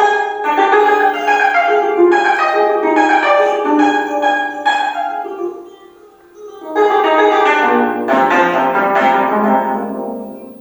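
25-string gayageum being played: quick plucked notes for about five seconds, a brief lull, then a dense rush of notes that rings on and fades away near the end.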